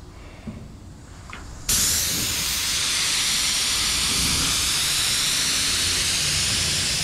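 Craftsman compressed-air paint spray gun hissing as it sprays a light dust coat of paint. The spray starts abruptly about two seconds in and then holds steady.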